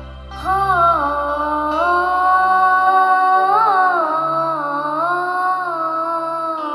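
A young girl's solo singing voice through a microphone, coming in about half a second in and holding long, slow notes with a quick ornament near the middle. Under it is a sustained keyboard accompaniment, whose low bass note drops out about three seconds in.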